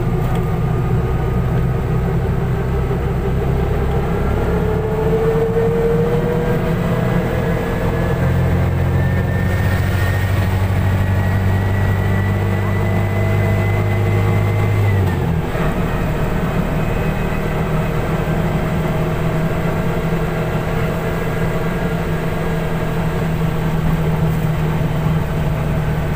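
Car engine running under way, its pitch climbing slowly for about fifteen seconds and then dropping sharply before carrying on steady.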